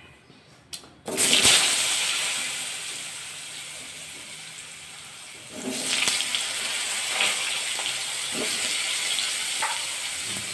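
Raw potato wedges going into hot mustard oil in a kadai: the oil breaks into a loud sizzle about a second in that slowly dies down, then flares up again about halfway through and keeps frying.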